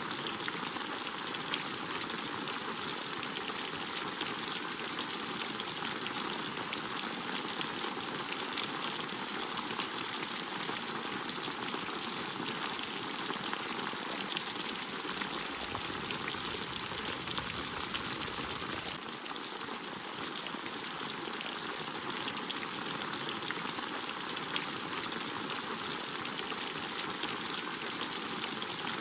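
Steady rain falling, a dense even hiss of many small drops and splashes.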